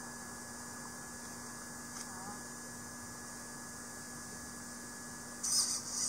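Steady electrical hum with a constant faint high hiss. A faint short sound comes about two seconds in, and a brief burst of higher hiss near the end.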